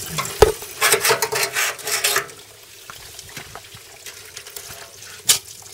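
Water splashing and sloshing in the riffled bowl of a gold centrifuge concentrator for about two seconds, with a knock about half a second in. Then it goes quieter, with a few small handling clicks and one sharper click near the end.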